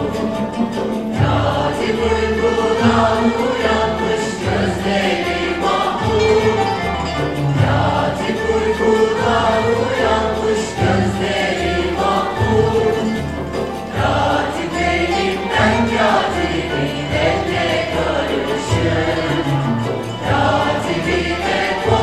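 Mixed choir singing a Turkish classical music song, accompanied by an ensemble of violin, ouds and frame drums. The drums keep a steady beat of about two strokes a second under the voices.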